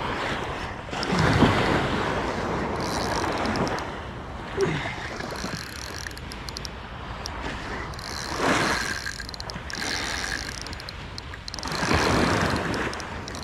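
Surf breaking and washing up the beach in several swelling surges, with wind rumbling on the microphone.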